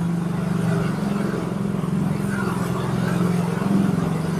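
Small motorcycle engine running steadily at low revs, heard from the rider's own bike.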